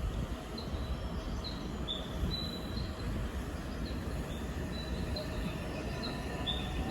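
Electric commuter train moving along the station platform: a steady low rumble with short, high-pitched squeaks coming every second or so.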